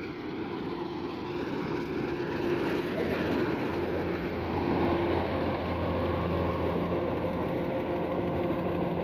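Rice combine harvester's engine running steadily with a broad mechanical hum, growing somewhat louder around the middle as the machine draws nearer.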